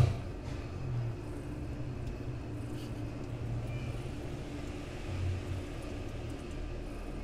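Low, steady purring from a cat nursing a litter of kittens, swelling and easing every second or two. A short thump right at the start.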